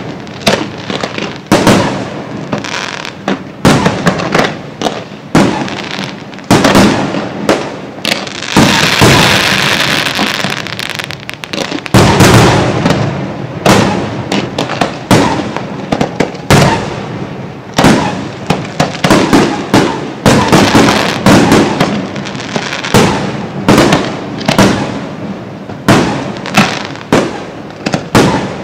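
Fireworks display: a rapid string of aerial shell bursts, one or two sharp booms a second, each trailing off. About nine seconds in, a few seconds of dense crackling hiss fill the gaps between bursts.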